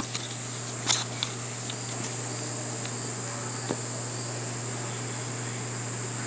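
Steady chirring of insects over a constant low hum, with a few faint taps about a second in and again near the four-second mark.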